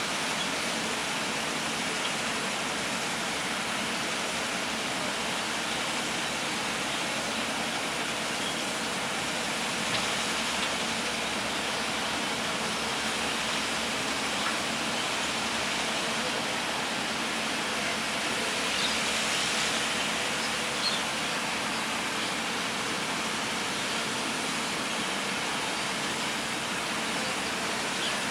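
Steady rushing of flowing water, an even hiss with no distinct engine note.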